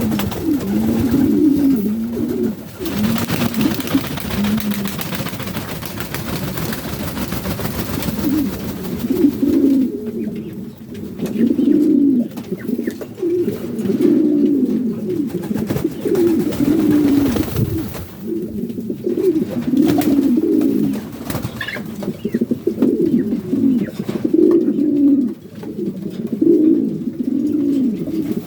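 Several pigeons cooing over and over, with low, warbling coos that overlap one another. A couple of longer stretches of rustling noise break in over the coos.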